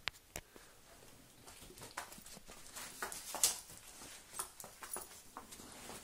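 A Doberman moving about and mouthing her rope toy: scattered soft taps, rustles and clicks, the loudest about three and a half seconds in.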